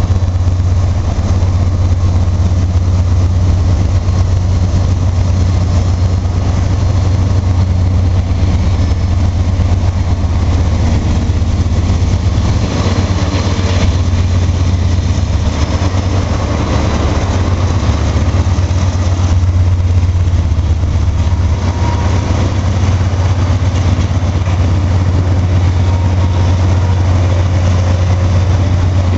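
Freight train led by GE AC4400CW diesel locomotives pulling out under power, a loud, steady low engine drone with the rumble of the train rolling by.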